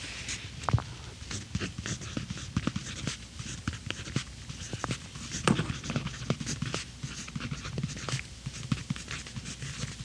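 Sanford Logo 0.5 mm mechanical pencil writing on planner paper: a quick, irregular run of short scratches and taps of the lead on the page, with soft low knocks.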